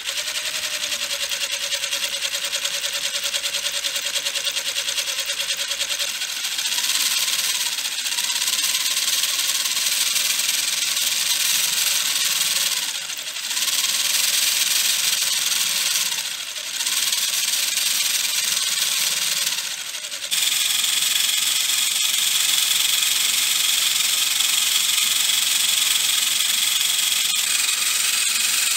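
Homemade PVC gearbox and engine model running, its plastic gears and shafts whirring and rattling. It starts suddenly. The pitch rises and falls, with three brief dips, then settles into a steadier, higher whine about two-thirds of the way through.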